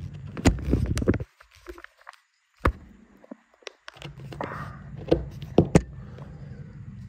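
Handling noise: sharp knocks and rustling close to the microphone, over a low steady rumble that cuts out for about three seconds in the middle.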